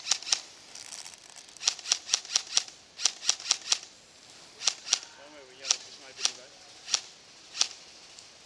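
G36-style airsoft electric rifle firing: two short rapid bursts of about eight shots a second, then single shots spaced under a second apart.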